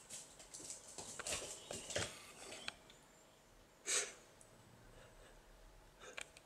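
Kitten scrambling in a woven basket of cloth: soft rustling and scratching for about three seconds, then one short breathy puff about four seconds in.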